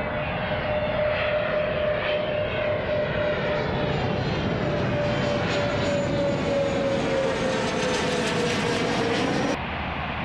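Jet engines of the Airbus A380 test aircraft running, a broad roar with a strong whine that slowly falls in pitch while the sound grows brighter. It cuts off suddenly near the end.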